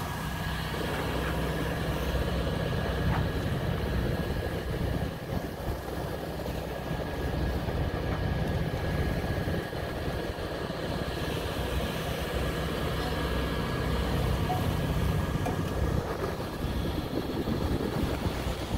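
Steady low drone of the ketch's inboard engine running at an even speed while under way on a calm sea.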